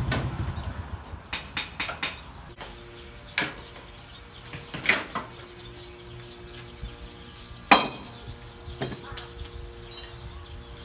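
Scattered metallic clinks and knocks of tools and parts being handled in a motorcycle workshop, about eight separate strikes, the sharpest one a little before the end. A running motorcycle engine dies away in the first second.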